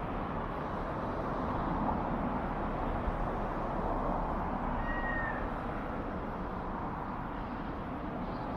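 Steady road traffic noise from cars passing on the road below, with one short high-pitched call about five seconds in.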